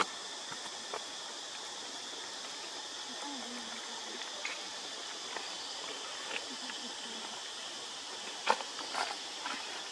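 Insects buzzing steadily in the background, with scattered small clicks and taps, the sharpest about eight and a half seconds in.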